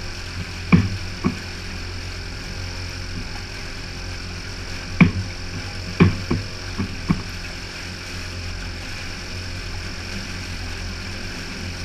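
Outboard motor running with a steady low hum, broken by sharp short knocks: two about a second in, then a cluster of five between five and seven seconds in.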